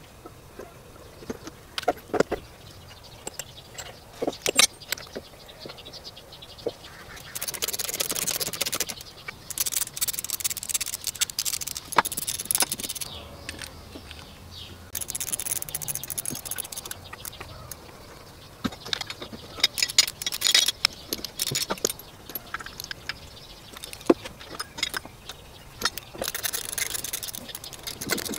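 Metal hand tools working on an engine: scattered clinks and knocks, with several runs of quick rasping clicks lasting a second or two, as when tightening fasteners.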